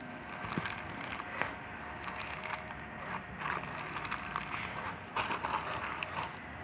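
Slime being squeezed and pressed by hand, giving irregular small crackles and pops, a little denser about five seconds in.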